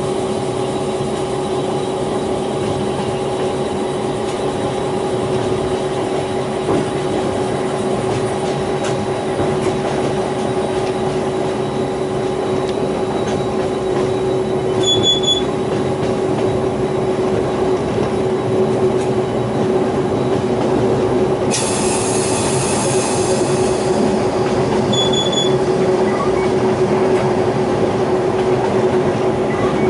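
DQ-class diesel-electric locomotive hauling a loaded ore train: a steady engine drone with two held tones over a dense rumble of wheels on rail. About two-thirds of the way through, a high hiss joins for two or three seconds.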